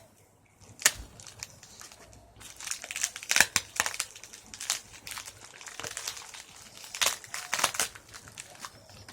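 Mail packaging crinkling and crackling in irregular bursts as the package is torn open and its contents handled, the crinkling growing busier after the first couple of seconds.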